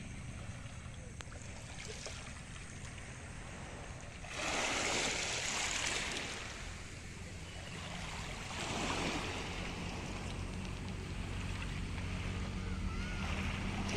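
Small waves washing onto a pebble shore over a low steady rumble. The wash swells three times: about four, nine and thirteen seconds in.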